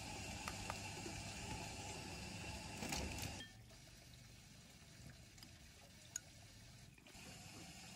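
Quiet background that drops away sharply about three and a half seconds in. Then a metal spoon scooping and stirring a thin dipping sauce in a ceramic bowl, with one light clink of the spoon on the bowl.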